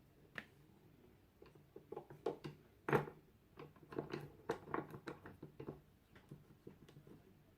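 Light, irregular clicks and taps of wood and hand tools being handled, with a sharper knock about three seconds in.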